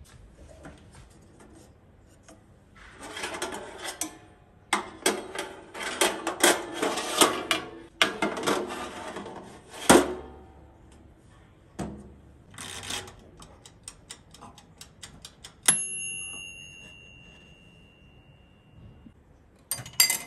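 Handling clatter of kitchen storage and a small toaster oven: a run of plastic and metal clicks and rattles as a drawer is slid and the oven's glass door and tray are worked. Later one sharp clink rings on for a few seconds, and near the end a drinking glass clinks as it is set onto a metal glass rack.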